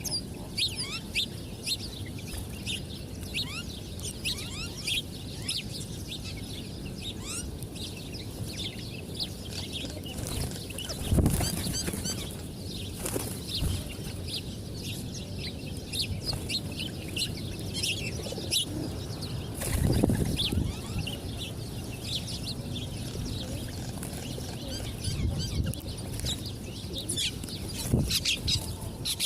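Many small birds chirping continuously, with quick overlapping calls. Two louder, lower rustling bursts come about a third and two-thirds of the way through.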